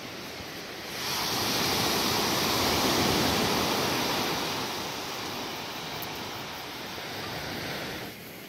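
Sea surf on a pebble beach: a wave breaks and washes up the shore as a rushing hiss that swells about a second in, then slowly fades and stops abruptly near the end.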